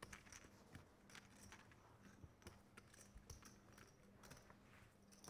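Faint, scattered clicking of poker chips being pushed and stacked at the table, over a low steady hum.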